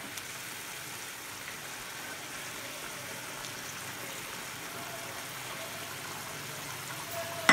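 Curry gravy boiling in a frying pan: a steady bubbling hiss, with a few faint taps as fried fish pieces are laid into it.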